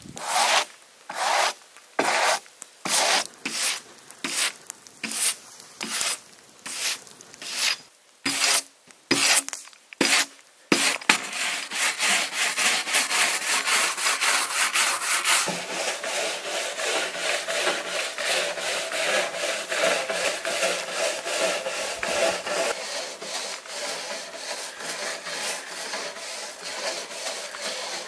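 Hand brush scrubbing the charred surface of a burned wooden board, clearing off loose char after the shou-sugi-ban burning. First come separate long scraping strokes, a little over one a second. About eleven seconds in it turns to quick, continuous back-and-forth scrubbing.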